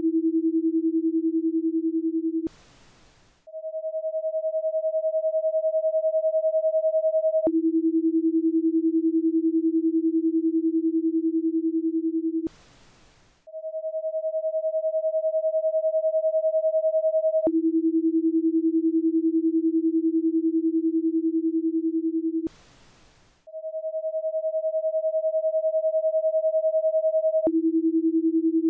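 Paced-breathing guide tones from steady electronic sine tones, repeating every ten seconds. A low tone lasts about five seconds and marks the exhale. A one-second gap with only faint hiss is the breathing space. Then a tone about an octave higher lasts four seconds and marks the inhale.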